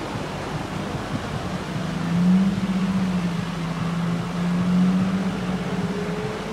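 Canal boat's engine running slowly as the boat creeps into the dock, a low drone that swells about two seconds in and eases off near the end, over a steady background rush.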